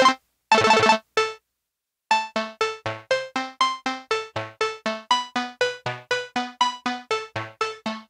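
Omnisphere's Unclean Machine 'Arcade Nights' lo-fi synth preset playing through its arpeggiator. In the first second and a half come short bursts of very rapid notes at the 1/64 arp rate. After a brief pause comes a steady arpeggio of plucky, decaying notes at about four a second, stepping up and down in pitch, with the clock now set to eighth notes.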